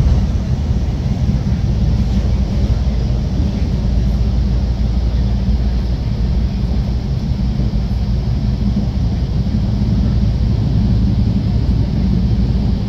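Passenger train running along the track, heard from inside the coach as a steady low rumble.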